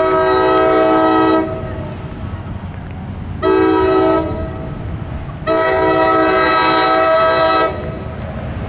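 Horn of an NJ Transit ALP-45DP locomotive sounding a steady multi-note chord in three blasts, long, short, long, as the train approaches a grade crossing. A low rumble lies underneath the blasts.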